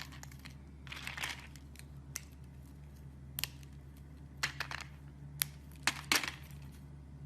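Slime being squeezed and worked by hand, giving scattered crackles, pops and short squishing bursts.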